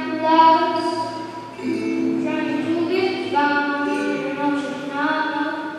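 A young girl singing into a handheld microphone, holding long notes in short phrases of a melody.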